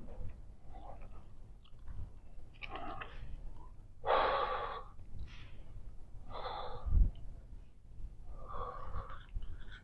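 A woman breathing hard from exertion, close to the microphone: four noisy breaths about two seconds apart, the loudest a little after four seconds in.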